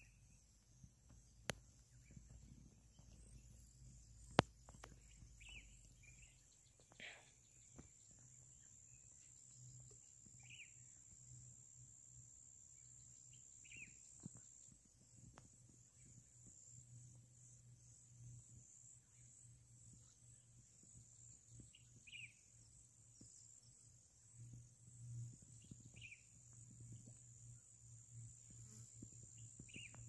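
Near silence: faint outdoor ambience with a steady high-pitched insect drone and short chirps every few seconds. There is a sharp click about a second and a half in and another, louder one about four seconds in.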